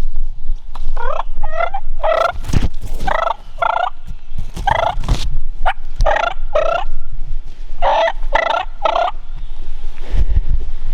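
Wild turkey gobbling over and over, a string of rapid rattling gobbles from about a second in until near the end.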